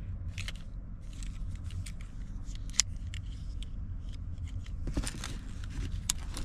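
Small clicks and rattles of a flip-key car fob being handled, with one sharp snap about three seconds in as the key blade flips out. A steady low hum runs underneath.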